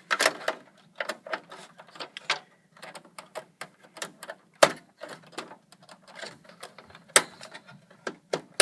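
Rapid plastic clicking and rattling as a DDR2 memory module is pressed and worked into a stubborn motherboard RAM slot, with three sharp snaps, about halfway, later on and at the very end, as the slot's retaining clips lock.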